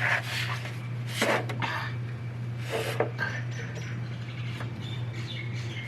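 Metal hand tools and sockets clinking and clattering in a few short knocks against a steel differential housing while fitting onto the bearing-cap bolts, over a steady low hum.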